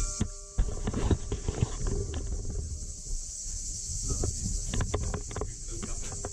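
A church bell's ringing dies away after its last strike, with no new strikes. Irregular clicks and knocks run over it along with a steady hiss.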